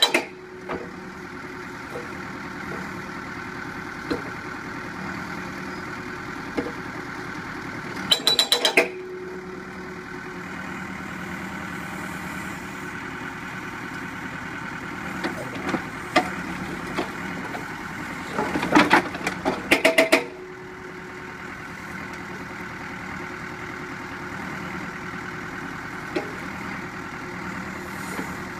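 Cat 432D backhoe loader's diesel engine running steadily while an Arrowhead S60 hydraulic breaker, on its first test after fitting, hammers a lump of concrete in two short bursts of rapid blows: one about a third of the way in, one about two-thirds through that lasts about two seconds. A few single clinks of broken pieces come in between.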